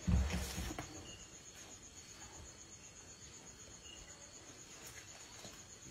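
A Sri Lankan tusker breaking up a fallen tree gives a loud crunching crash of wood and leaves in the first second. Crickets keep up a steady, high, rapidly pulsing trill throughout.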